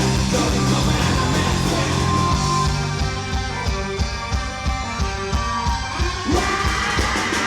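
Live rock band playing. A couple of seconds in, the sound thins to mostly evenly spaced drum hits, and the full band comes back in near the end.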